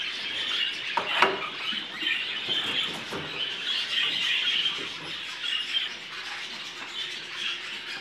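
A roomful of caged budgerigars chattering and chirping without a break, with a single knock about a second in.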